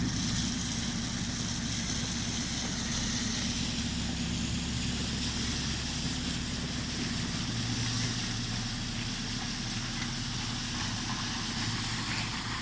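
Heavy road-works machine's engine running steadily, with a low hum and a hiss above it; the low note shifts slightly about halfway through.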